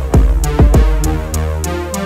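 Background music: an electronic hip-hop beat with a drum machine, deep kicks that fall sharply in pitch, and regular hi-hat ticks, settling into a held bass note about halfway through.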